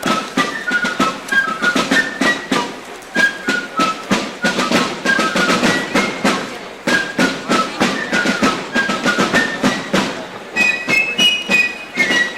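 Fifes and snare drums playing a marching tune: a shrill, quick fife melody over rapid, steady drum strokes, the fifes climbing higher near the end.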